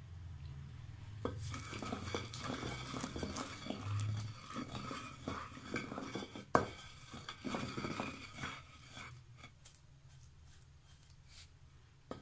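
Wooden pestle pounding and grinding a wet paste of mint, green chilli and yogurt in a mortar. It makes irregular knocks; the loudest comes about six and a half seconds in, and the knocks thin out near the end.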